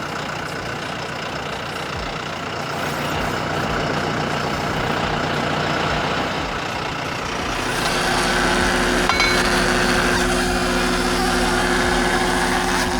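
Skid steer engine running steadily, then held at a higher, steadier speed about eight seconds in.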